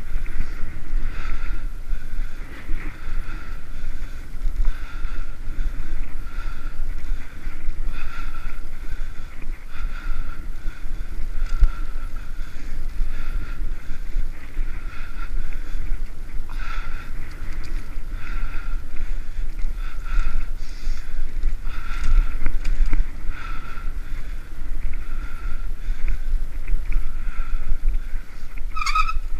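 Wind rumbling on the microphone of a bicycle-mounted GoPro Hero 3 while riding at speed on a paved trail, with a faint tone pulsing about once a second. A short sharp sound comes near the end.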